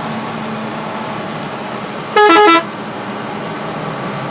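A bus horn sounds once about two seconds in: a loud, multi-tone blast of about half a second whose pitch steps between notes. Under it, steady engine and road noise inside the moving bus.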